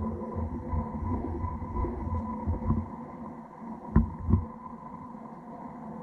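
Feiyu G6 gimbal motors whining, picked up by a GoPro Hero 7's built-in microphone: a steady high hum over an uneven low rumble, with two sharp knocks about four seconds in.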